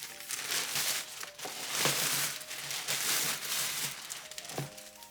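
Packaging crinkling and rustling as it is handled and unwrapped, in irregular bursts, with a couple of soft knocks.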